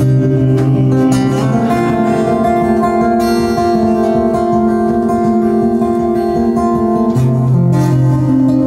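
Solo acoustic guitar played live in an instrumental passage without singing, with strummed chords ringing on.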